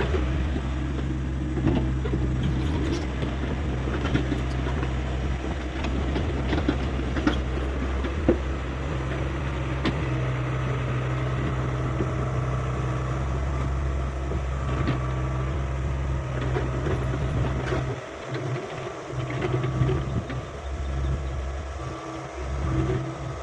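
Hyundai 85A excavator's diesel engine running steadily, with scattered knocks on top. About three-quarters of the way through, the engine note drops and turns uneven for a few seconds before picking up again.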